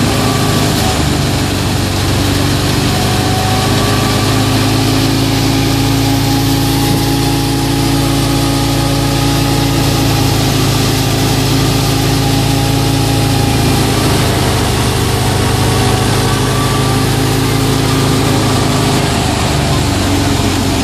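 Tractor-powered wheat thresher running under load as straw is fed in, with the FIAT 640 tractor's diesel engine driving it. The sound is a steady, loud drone with an even hiss over it.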